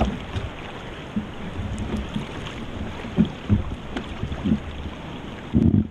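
Fast current rushing and splashing along the side of a canoe close to the microphone, with several heavier slaps of water against the hull, the loudest near the end.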